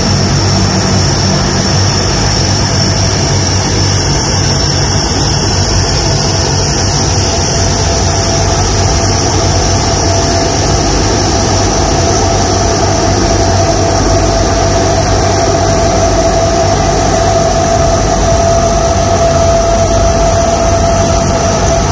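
The Super Guppy's four Allison T56 turboprop engines run at low taxi power: a loud, steady propeller drone with a high-pitched turbine whine over it. A mid-pitched tone in the engine note grows stronger near the end as the aircraft rolls past.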